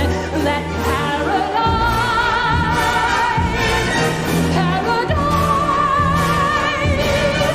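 Orchestral music with singing: long, high held notes with vibrato over sustained low chords.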